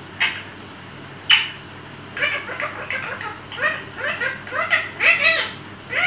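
Rose-ringed parakeet (Indian ringneck) calling: two short high-pitched calls, the second one sharp, then a run of quick chattering syllables.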